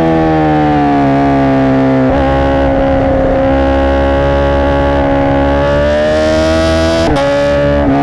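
Honda CBR1000RR SP1's inline-four through a Racefit Growler X exhaust at speed: the note eases off and breaks about two seconds in, holds steady, then climbs under acceleration from about five and a half seconds. Just after seven seconds it cuts briefly for an upshift and comes back at a lower pitch.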